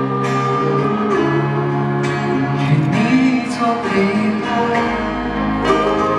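Live performance of a Mandarin pop ballad: band accompaniment with a male singer's voice over it.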